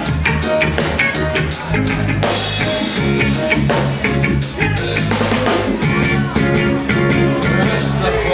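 Live reggae band playing an instrumental passage: drum kit beat with rimshots, bass and guitar, breaking off abruptly at the very end.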